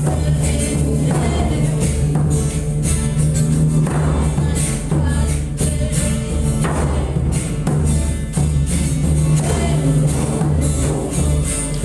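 Didgeridoo holding a steady low drone with a rhythmic pulse, over driving percussion with bright, crisp hits in a steady beat.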